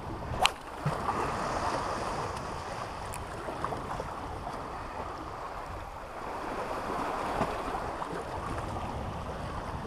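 Small waves lapping against shoreline rocks, with wind buffeting the microphone, and one sharp click about half a second in.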